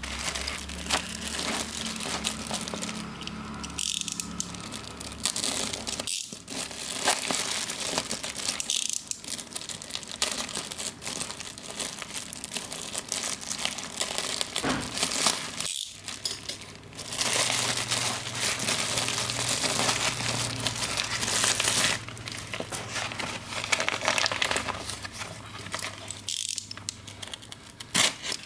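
Packaging of a pocket Wi-Fi modem being handled and unwrapped: a steady run of crinkling and crackling with small clicks and knocks, with a few brief pauses.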